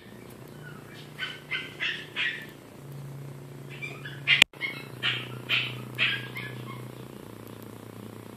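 Week-old kitten hissing, eyes still closed: short, sharp puffs in two quick runs, about a dozen in all. This is its defensive warning at a person close by. A single sharp click about halfway through.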